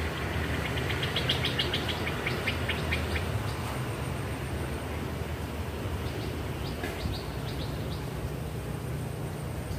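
Small birds chirping, a quick run of short high notes in the first few seconds and a few more about two-thirds of the way in, over a steady low rumble.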